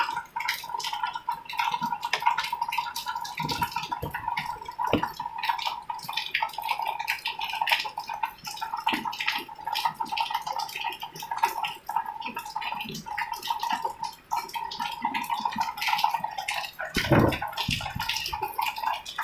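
Soldering work on a TV main board: constant small crackles, clicks and taps under a steady high-pitched whine, with a low thump about 17 seconds in.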